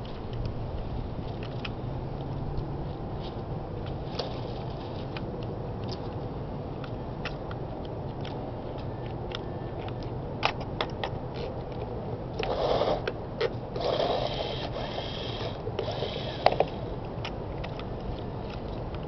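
Tiny electric motors and gear trains of micro RC trucks (Xmod and Mini-Z scale) whirring in three short bursts in the second half, with scattered small clicks and ticks from the wheels working over loose dirt and gravel.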